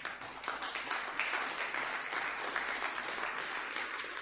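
Audience applause: many people clapping at once.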